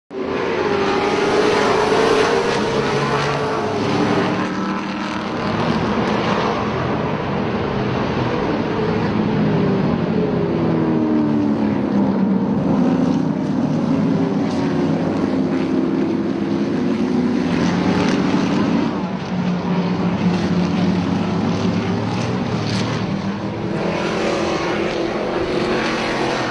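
Trans Am TA2 race cars' V8 engines running hard on track: continuous engine noise whose pitch repeatedly rises and falls as the cars accelerate, shift and brake, with more than one car heard at times.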